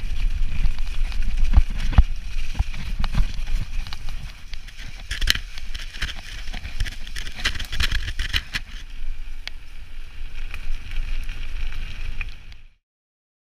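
Mountain bike ridden over a rough, leaf-covered track: a heavy low rumble of wind and ground vibration on the action camera, with sharp knocks and rattles from the bike over bumps. It gets quieter after about four seconds and cuts off abruptly near the end.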